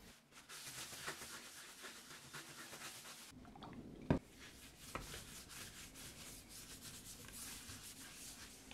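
Faint, scratchy rubbing of a paper towel and then a sponge over tooled veg-tan leather, wiping off antique gel and working in a resist finish. A single sharp knock sounds a little past four seconds in.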